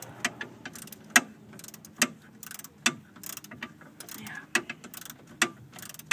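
Socket ratchet wrench clicking in short, irregular bursts as it is swung back and forth, backing out a screw on the fuel filter's protective bracket.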